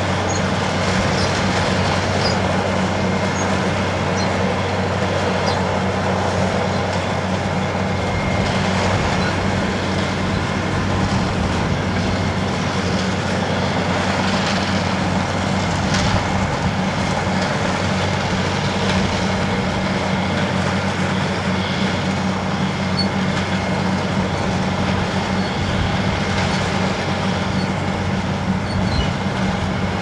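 Dewulf RA3060 self-propelled potato harvester running steadily at work: its 310 hp Deutz six-cylinder diesel drones evenly under a constant rattle from its conveyors as its elevator unloads potatoes into a trailer.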